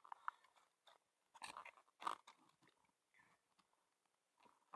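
Faint, scattered crinkling and crackling of a plastic bag being shifted around among the speared catch, with a couple of short louder bursts about a second and a half and two seconds in.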